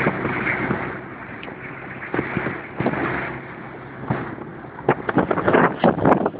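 Motorboat under way: steady wind rush on the microphone and water noise over the faint drone of the boat's engine, easing off for a few seconds. Near the end comes a quick run of sharp thumps.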